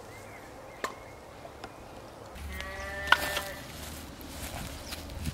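A sheep bleats once, a quavering call lasting about a second, starting a little before the middle. A sharp knock, the loudest sound, lands in the middle of the bleat, and a fainter click comes about a second in.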